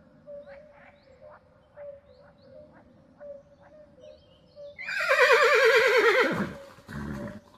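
A single loud animal call about five seconds in, wavering and falling in pitch for about a second and a half. It follows several seconds of faint, evenly spaced ticks over a thin steady hum.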